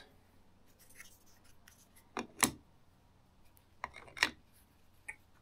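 Light plastic clicks and taps as DJI Mic 2 microphone parts are set into the slots of a 3D-printed PETG box: a pair about two seconds in, another pair around four seconds in, and a faint one near the end.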